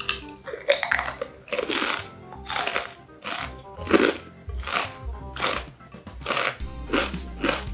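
A Paqui One Chip Challenge tortilla chip crunched and chewed close to the microphone, about two crunches a second, with background music.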